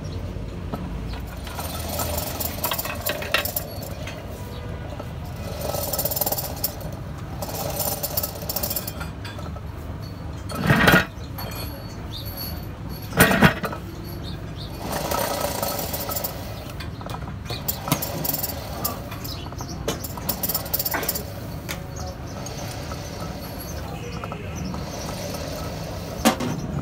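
Heavy steel parts of a truck differential being handled and fitted, ring gear and carrier scraping and clinking, with two loud metallic clanks a couple of seconds apart near the middle over a steady low hum.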